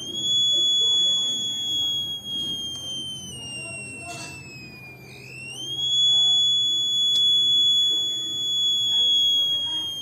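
Piezo buzzer of a homemade BC-547 transistor fire-alarm circuit sounding one continuous high beep, set off by the heat of a lit match held at the circuit. The pitch sags slowly for about five seconds, jumps back up, then starts to dip again near the end.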